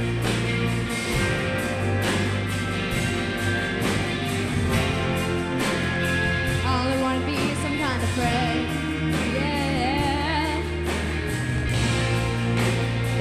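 Live rock band playing a slow ballad, with electric guitars, bass and a steady drumbeat. A female lead voice sings drawn-out, wavering notes without clear words in the middle.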